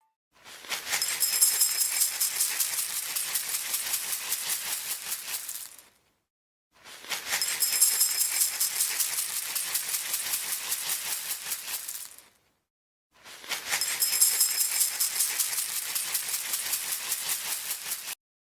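A rapid shaking rattle with a faint high jingle, played three times in bursts of about five seconds with sudden silent gaps between them.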